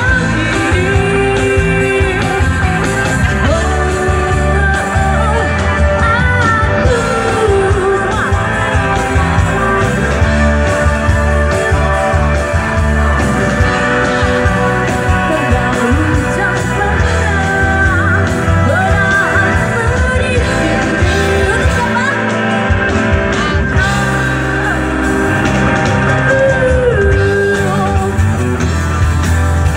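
Live pop-rock band playing a song, with a lead singer's vocals over guitar and a steady, heavy bass line.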